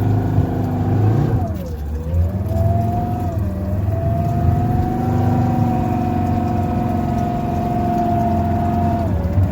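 Land Rover TD5 five-cylinder turbodiesel engine in a Daihatsu Fourtrak working through deep river water. Its revs and a steady whine dip briefly about two seconds in, again a second or so later, and once more near the end, each time picking back up.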